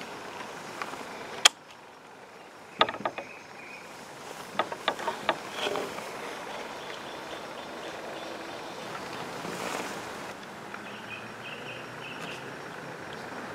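Steady outdoor background noise, broken in the first half by a handful of sharp clicks and taps, the loudest a single sharp click about a second and a half in. Faint high chirps come and go.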